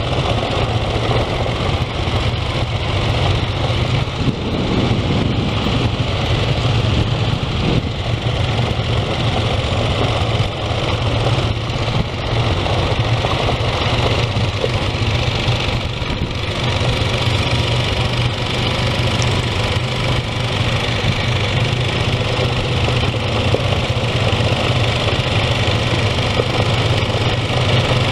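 ATV engine running steadily at low speed, heard close up from the quad's own front rack.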